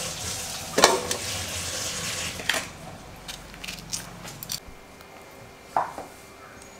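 Green chillies being cut by hand with a knife: a few sharp, crisp snaps and clicks, the loudest about a second in. The second half is quieter, with one more click.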